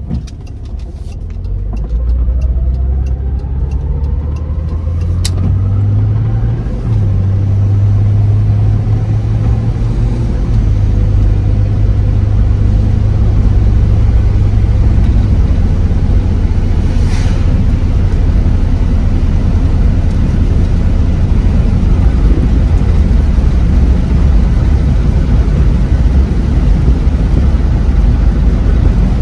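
2002 Jeep Grand Cherokee heard from inside the cabin, pulling away and accelerating, its engine pitch rising and then stepping down at gear changes about 7 and 10 seconds in. It then settles into a steady low drone of cruising engine and road noise.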